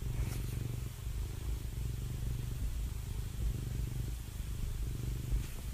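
Domestic cat purring close to the microphone: a steady, low, finely pulsing rumble.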